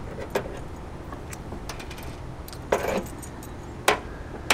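Small stainless steel fittings (eye bolt, turnbuckle, nuts) clinking and clicking against each other as they are handled, a handful of sharp metallic clicks, the loudest about three and four seconds in.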